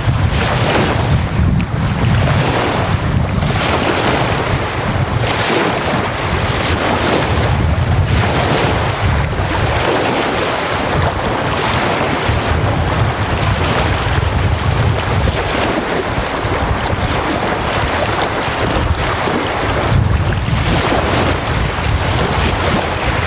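Choppy wind-driven lake waves breaking and washing up a sandy shore, a small breaker swelling in every second or two, over gusting wind with a low rumble of wind on the microphone.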